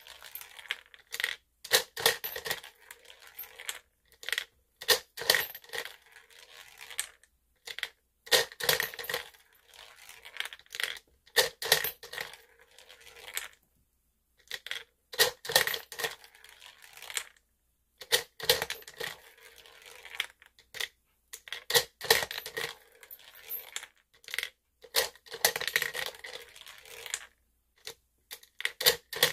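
Toy plastic gumball machine dispensing gumballs over and over: coins dropping in, and gumballs rattling down the plastic spiral chute and clattering into a plastic tray. Bursts of clicking and rattling come every few seconds, with short silent gaps between them.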